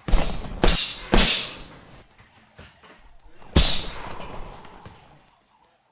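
Four sharp hits, each fading out over a second or so: two in quick succession at the start, a third just over a second in, and a fourth about three and a half seconds in.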